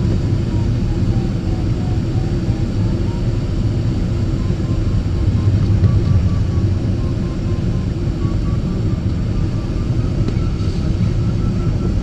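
Glider cockpit on aerotow: a steady rush of air and the tow plane's engine drone, with a beeping variometer tone that wavers and slowly rises in pitch in the second half.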